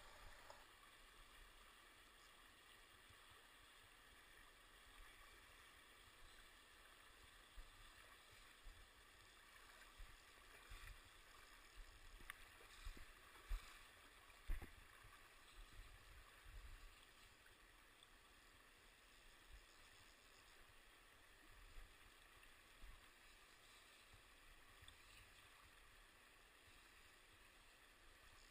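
Faint rushing of a shallow river flowing over stones, with scattered low bumps, the two loudest close together about fourteen seconds in.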